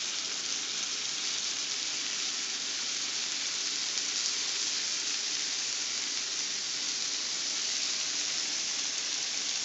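Chicken pieces sizzling steadily in hot oil in a frying pan, with lime juice squeezed over them: an even, unbroken hiss.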